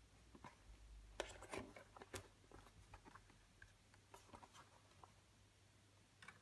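Faint handling clicks and taps of a CD and its packaging as the disc is set back into its tray, with a cluster of sharp clicks a second or two in and a few lighter ticks later.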